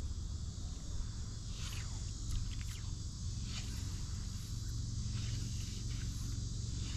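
A steady, high insect chorus, pulsing slightly, over a low steady rumble. A few short swishes about two to four seconds in fit fly line being cast and stripped through the rod guides.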